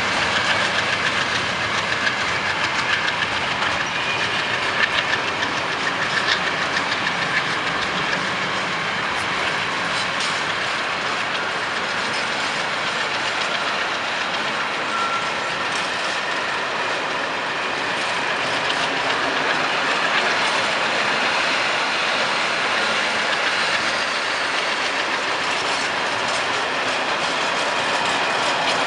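Freight train wagons, tank cars and then flat wagons, rolling past close by: a steady rumble of steel wheels on rail, with scattered clicks as the wheels cross rail joints.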